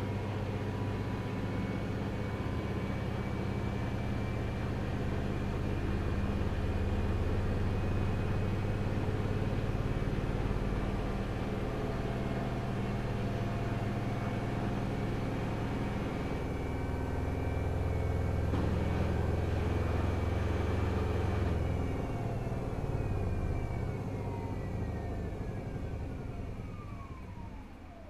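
Front-loading washing machine spinning: a steady low hum with a high motor whine. About 22 seconds in the whine begins to fall steadily in pitch and the sound fades as the drum slows down from the spin.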